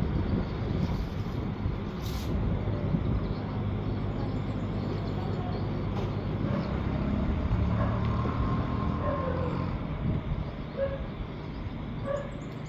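A road vehicle's engine running, a steady low rumble, with a brief hiss about two seconds in.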